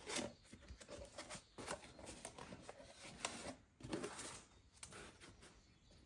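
Faint rustling, scraping and clicking of a cardboard box being opened by hand, its flaps pulled back.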